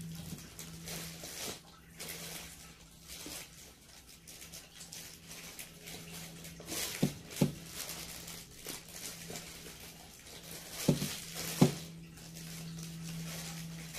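Clear plastic bag crinkling and rustling as it is handled and opened by hand, with a few sharp clicks about halfway through and again near the end.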